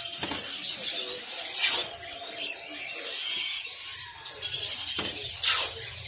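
Many small caged songbirds chirping and twittering together, with two short rasping hisses, one about a second and a half in and one near the end.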